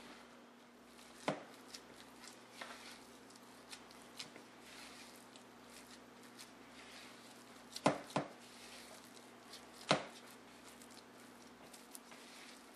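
Wooden spoon stirring and folding a stiff, cheesy pizza-crust dough in a plastic mixing bowl: soft scraping with scattered sharp knocks of the spoon against the bowl, the loudest two close together about eight seconds in and another about ten seconds in.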